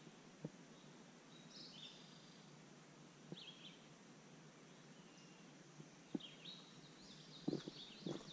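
Faint birds chirping in spring woodland over a quiet outdoor background, the chirps coming in short scattered bursts that grow busier near the end. A few brief soft knocks, the loudest near the end.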